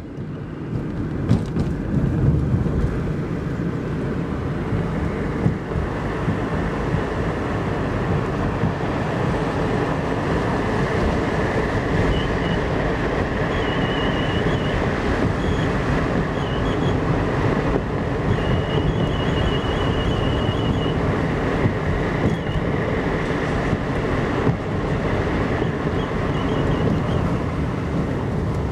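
Road and tyre noise of a moving Toyota Caldina, rising in the first couple of seconds and then steady. From about halfway through, a faint high whistle from a brake caliper comes and goes in quick pulses.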